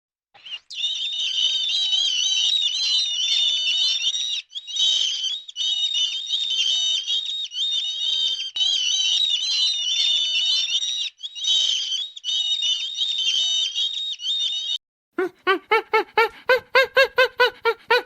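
Dense, high-pitched animal chirping and squeaking, continuous apart from a few short breaks. About three seconds before the end it gives way to a run of short, pitched calls, about four a second.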